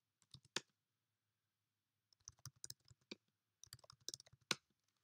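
Keystrokes on a computer keyboard as a new password is typed and then confirmed: a single key tap about half a second in, then two quick runs of taps around two and four seconds in, the last tap the loudest.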